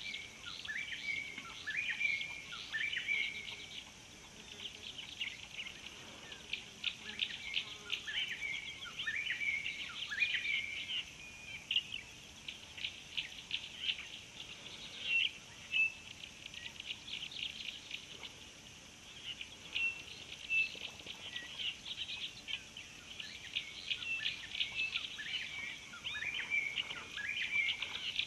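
Wild birds calling: rapid runs of chirps, mixed with short calls that slide downward, overlapping throughout, over a faint steady high hiss.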